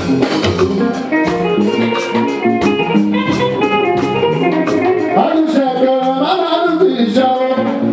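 Live band music with guitar and regular percussion strokes, with a man singing into a microphone over it from about five seconds in.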